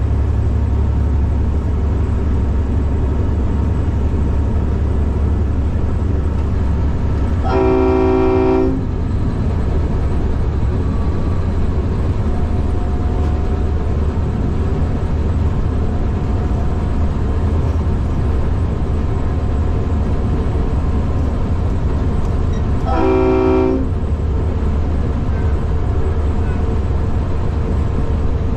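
V/Line A class diesel-electric locomotive running under a steady low engine drone, heard from the cab. Its horn sounds two short chord blasts, about a second each: one about a third of the way in and one near the end.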